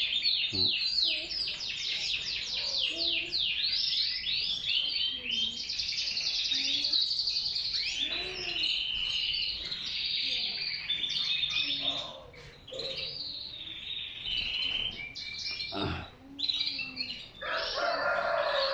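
Many caged canaries singing at once: fast trills and quick down-sweeping chirps overlap in a dense, high chorus. The chorus eases briefly about twelve seconds in and again around sixteen seconds.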